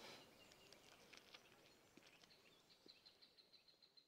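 Near silence with faint bird chirping: a quick run of high, evenly spaced chirps starts about halfway through and fades out.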